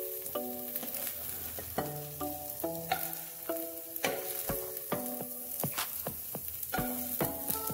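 Food sizzling as it fries in a hot pan, with repeated clicks and scrapes of a utensil stirring it, over light background music.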